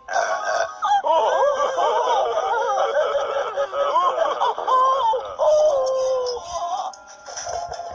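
Cartoon penguin voices, Pingu and his family, laughing and squealing in high, wavering tones for several seconds, fading near the end.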